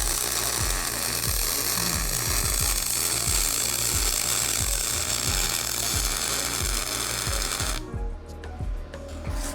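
MIG welding arc from an aluminum spool gun on a Yeswelder MIG 250 Pro at about 180 amps, hissing and crackling with spatter as the bead runs on 1/4-inch aluminum. The arc started cold, which is why it spatters and spits. It cuts off suddenly about eight seconds in.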